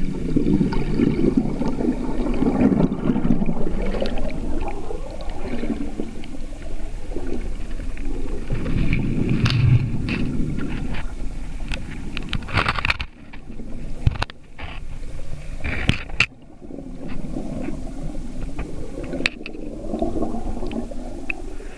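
Muffled rushing and gurgling of a fast river current heard with the microphone underwater, with scrapes and knocks as the camera housing touches the rock, and a few sudden short drops in level about two-thirds of the way through.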